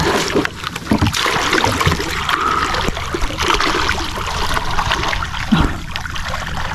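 Sea water splashing and sloshing from swimming strokes and kicks at the surface, a continuous run of small splashes.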